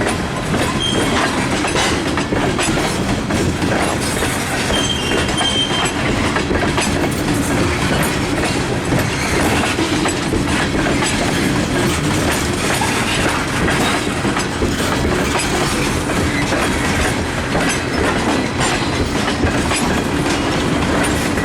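A CSX freight train's ethanol tank cars rolling slowly past over jointed rail, a steady clickety-clack of wheels over the rail joints. Two brief high wheel squeals come about a second in and again around five seconds in.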